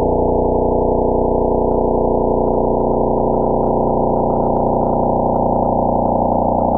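Radio signal of a pulsar converted into sound: a steady, rapid electronic buzz made of many layered low tones.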